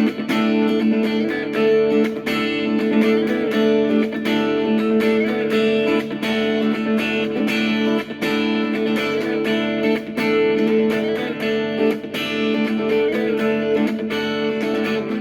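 Instrumental guitar music: quickly plucked guitar notes over sustained chords, going on steadily.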